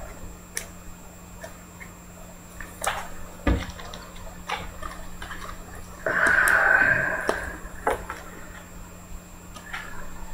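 A trading card being handled and slid into a clear plastic sleeve and holder: soft plastic clicks and taps, with a longer rustling, scraping slide about six seconds in.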